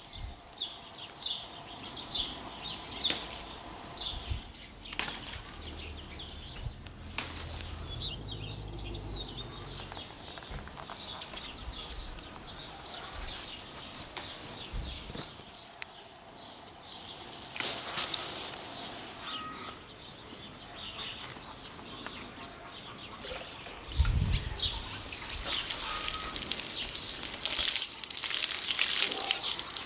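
Small birds chirping repeatedly, with scattered clicks and knocks and louder bursts of rustling, the loudest near the end.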